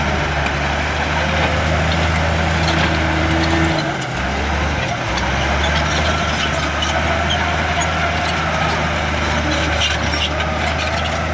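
Komatsu D53-16 bulldozer's diesel engine running steadily with a deep hum, its note dipping briefly about four and five seconds in, with light clicks and rattles over it.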